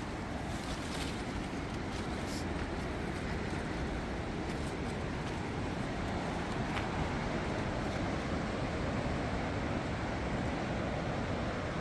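Steady rushing roar of ocean surf breaking on the rocky coast below, mixed with wind. It grows a little louder in the second half.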